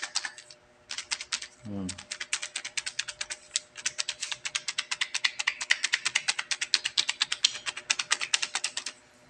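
A bottle of homemade herbal liniment, packed with wood and root chips soaking in alcohol, being shaken hard: the chips clatter against the bottle in rapid clicks, many a second, with a brief pause near the start, stopping about nine seconds in.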